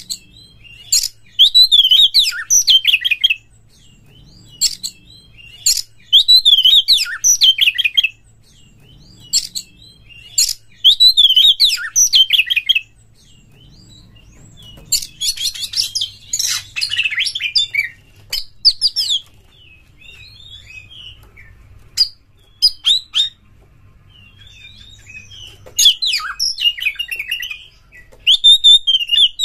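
Oriental magpie-robin singing loudly in bursts of two to three seconds: quick, varied whistles and rapid chattering notes, with short pauses between phrases and a longer, denser phrase about halfway through.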